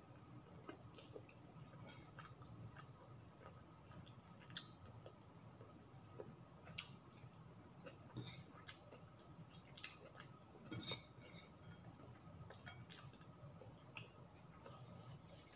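Faint chewing of a person eating rice and chicken by hand, with scattered small clicks of fingers and food on a ceramic plate, the sharpest about four and a half seconds in, over a low steady hum.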